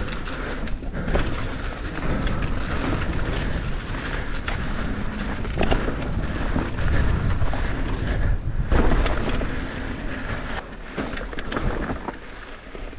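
Mountain bike rolling fast down a dirt forest trail: knobby tyres crunching over dirt, roots and dry leaves, with the chain and frame rattling and knocking over bumps and wind rumbling on the microphone. The noise eases briefly about two-thirds of the way in and again near the end.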